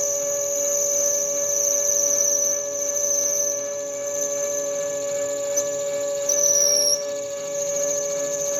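Lathe parting off aluminium stock: the cut-off tool gives a sustained, high-pitched, wavering squeal over the steady hum of the running lathe. The squeal's pitch dips briefly about six seconds in, then comes back up.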